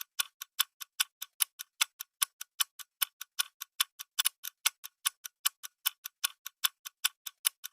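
Countdown-timer sound effect of a clock ticking rapidly and evenly, about five ticks a second, marking the seconds left to guess in a 10-second quiz round.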